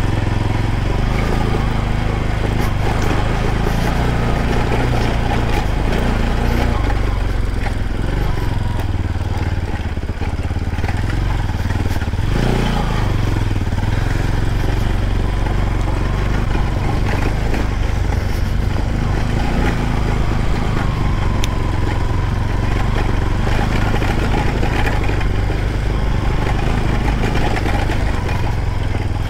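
Motorcycle engine running steadily at an even pitch, with a brief dip about ten seconds in.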